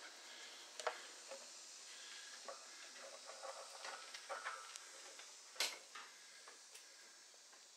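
Brass PEX adapter being threaded by hand onto a thread-seal-taped pipe nipple: faint rubbing and small metal clicks and ticks, with a sharper tick about a second in and the loudest click a little past the middle.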